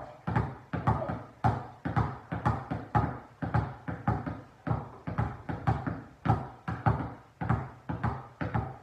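Two basketballs dribbled alternately on a hardwood floor: a steady run of bounces, a little over two a second, with a short room echo after each.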